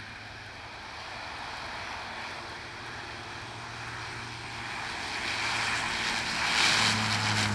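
Bombardier Dash 8 Q400 turboprop running along the runway on its takeoff roll, its propellers giving a steady low drone that grows louder as it nears and is loudest near the end.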